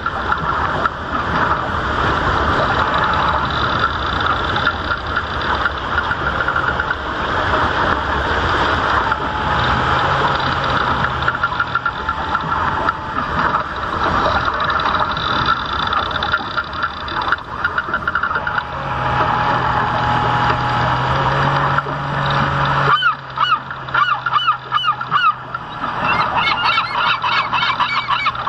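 A flock of geese honking and gabbling continuously over the low hum of the model boat's motor. About two-thirds of the way through, the motor hum drops away and the rapid honking stands out clearly.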